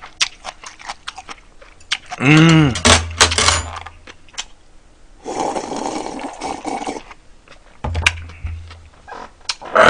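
Close-miked eating at a table: chopsticks and a spoon clicking against bowls and dishes. A short hummed vocal sound a little after two seconds. A stretch of slurping from a bowl of broth in the middle.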